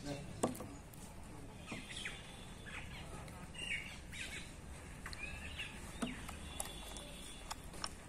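Small birds chirping in short, scattered calls, with a few sharp clicks in between, the loudest about half a second in.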